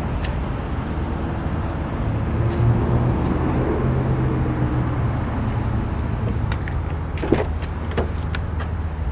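A car engine running, its low hum growing stronger for a few seconds in the middle and then easing off, with a sharp click about seven seconds in.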